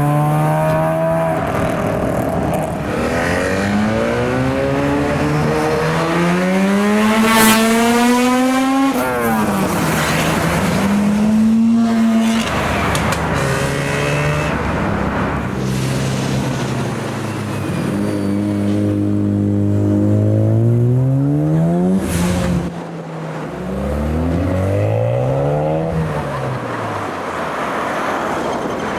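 Mazda rotary engines revving and accelerating. The engine note climbs in pitch and falls back several times, as if shifting up through the gears. About three-quarters of the way through it drops away sharply, then climbs again.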